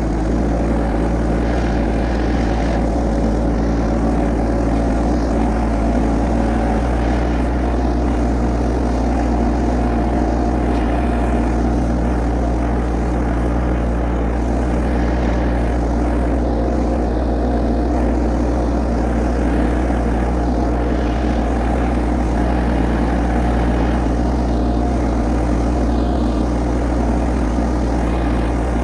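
LS compact diesel tractor engine running steadily, a constant low drone with no change in speed.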